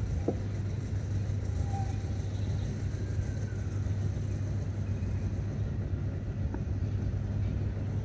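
Steady low rumble under a faint even background noise, with a small click shortly after the start.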